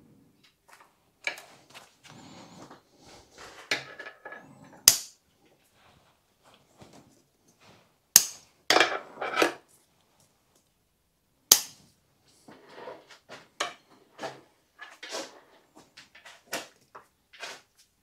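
Hand-work sounds of a bonsai being secured in its pot: irregular scraping and rustling, broken by several sharp snaps of tools, the loudest three about three seconds apart.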